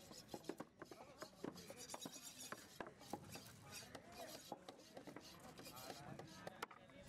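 A large knife slicing and scraping through electric ray flesh and skin on a wooden cutting board: a rasping, scratchy cutting sound with many small knocks of the blade against the board.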